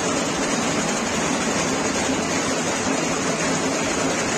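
Italian high-speed gold chain-making machine running steadily, giving a dense, even mechanical noise.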